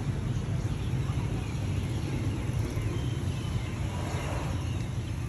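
Street traffic ambience: a steady low rumble of motorbikes and other traffic, with faint voices.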